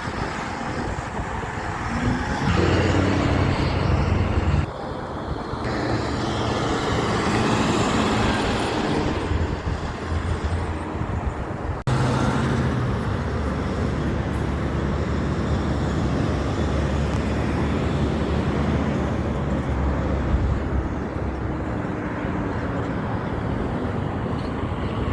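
Big trucks driving past on a road, their engines running loud with a deep, steady note. The sound breaks off and changes abruptly twice, about five and twelve seconds in.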